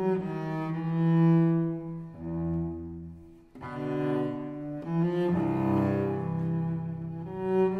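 Slow background music: a low bowed-string melody in long held notes, with a brief dip about three and a half seconds in.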